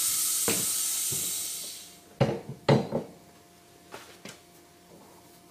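A steady high hiss fades out about two seconds in. Then two loud knocks about half a second apart and a few lighter taps follow as the metal safety-valve body is set into the three-jaw chuck of a safety-valve lapping machine.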